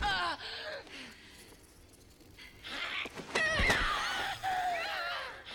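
Women shrieking and crying out in a struggle, high wavering cries at the start and again through the second half, with a thud about three and a half seconds in.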